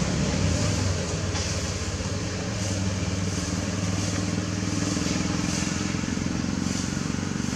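A motor running steadily with a low, even drone.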